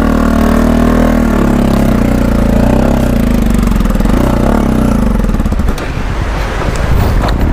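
Bajaj Pulsar NS200 motorcycle engine pulling under load up a steep, loose rocky track, its revs rising and falling. Near the end the engine note fades into a rougher rattle and crunch of tyres on gravel.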